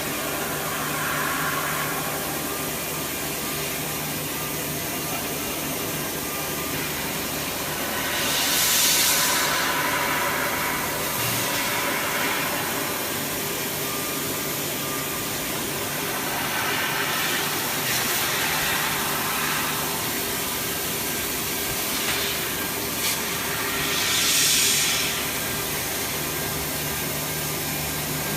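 A 1325 CO2 laser cutting machine running while cutting stainless steel: a steady machine hum and airy rush, with two louder hissing surges, about nine seconds in and near the end.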